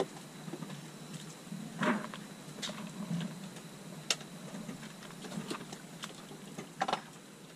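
Irregular light taps and clicks, a second or so apart, over a faint low hum.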